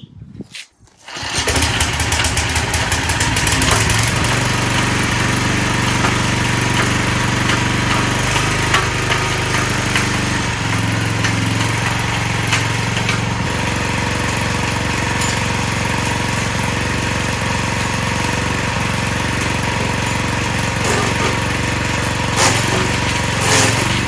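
Forest Master FM6DD-MUL wood chipper's 6.5 hp four-stroke petrol engine pull-started, catching about a second in and then running steadily at speed.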